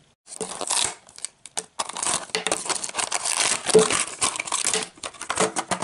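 Plastic wrapper from a Littlest Pet Shop Hungry Pets can being torn open and crumpled by hand: dense crinkling and crackling with many sharp crackles.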